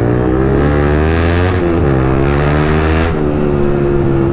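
Motorcycle engine accelerating through the gears: its pitch climbs, drops sharply twice about a second and a half apart, and climbs again.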